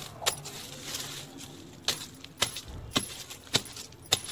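A metal digging blade chopping into stony soil to dig out a taro corm: six short, sharp strikes, one just after the start and then five at a steady pace of about two a second from about two seconds in.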